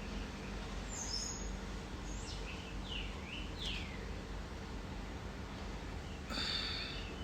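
Birds chirping a few times, short falling calls over a steady low background hum, with a brief brighter chirping burst near the end.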